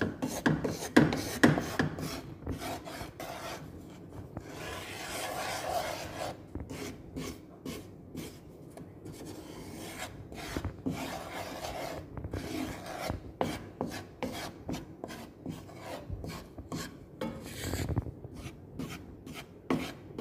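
Wooden spatula scraping and stirring dry flour around a metal pan, a run of irregular rasping strokes, the flour being dry-toasted.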